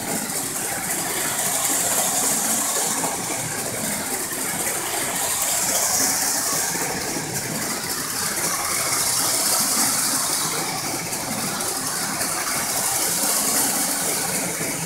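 Toy train running round its oval track: a steady mechanical rattle and whir from its motor and wheels, swelling and fading every few seconds as it circles.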